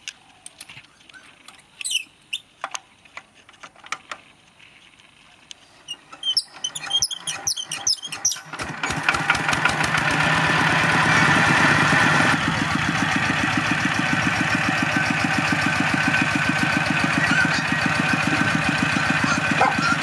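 Single-cylinder diesel engine of a two-wheel walking tractor being hand-cranked, with scattered clicks and knocks, then catching about eight or nine seconds in and running on with a loud, steady, even beat.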